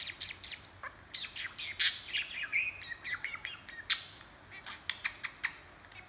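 Budgerigar chattering: a quick run of clicks, short chirps and warbles, with two louder, sharper chirps about two and four seconds in.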